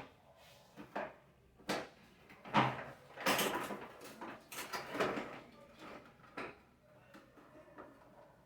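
Parts of a vacuum cleaner being handled during a repair: scattered clicks and knocks, with a busier stretch of clattering and scraping in the middle. The motor is not running.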